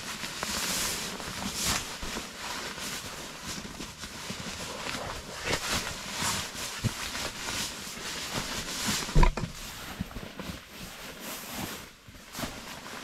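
Nylon stuff sack and rolled self-inflating sleeping pad rustling and swishing in uneven bursts as the pad is pushed down into the bag. A single sharp thump, the loudest sound, comes about nine seconds in.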